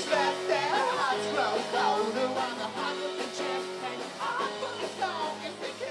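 Live rock band playing, with acoustic and electric guitars and singing over held notes; the music grows gradually quieter toward the end.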